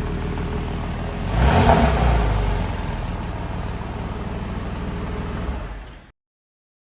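Porsche 997 Carrera S flat-six idling through an aftermarket Soul Performance valved exhaust, with one short rev about a second and a half in that falls back to a steady idle. The sound stops abruptly near the end.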